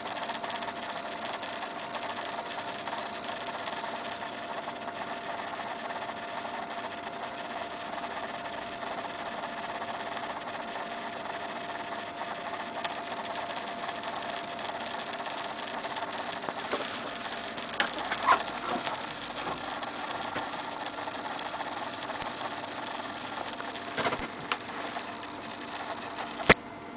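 A steady machine hum with a faint whine, with a few scattered clicks in the second half and one sharp click just before the end.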